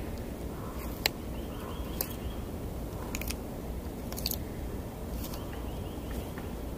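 Sulcata tortoise biting into raw vegetable slices, sweet potato and cucumber, with a sharp crunch about once a second over a steady low background rumble.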